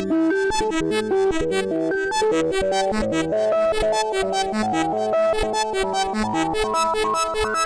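Make Noise STO oscillator in a Eurorack modular synthesizer playing a rapid run of pitched synth bleeps, the notes changing several times a second, with a tone sweeping upward in pitch near the end.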